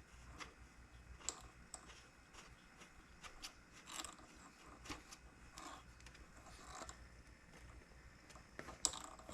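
Faint, scattered clicks and scrapes of the air hose's threaded fitting being screwed into the port of a portable jump starter's built-in air compressor, with one sharper click near the end.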